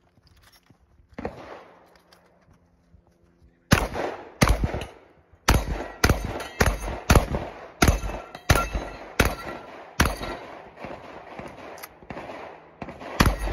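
A string of about a dozen shots from a semi-automatic 12-gauge Beretta 1301 shotgun, fired in quick succession roughly one every half-second to second, with one short pause early in the string.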